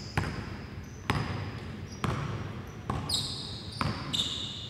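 Basketball being dribbled on a hardwood gym floor, about one bounce a second, with high sneaker squeaks on the floor that are loudest in the second half.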